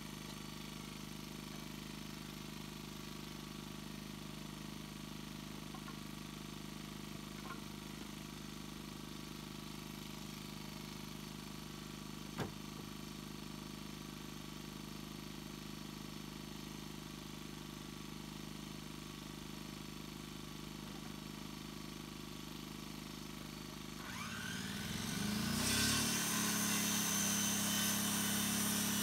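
A corded circular saw starts near the end, spinning up with a rising whine, then running loudly as it cuts through a wooden board. Before that there is only a steady low hum, with one short knock about halfway.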